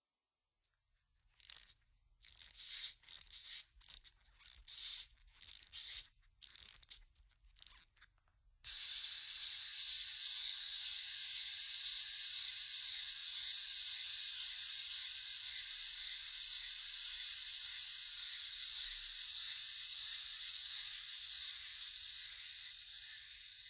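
Wind-up toy's key being wound: a series of short ratchet clicks, about two a second. About nine seconds in they give way to a steady, high hissing whir that starts suddenly, fades slowly and stops abruptly.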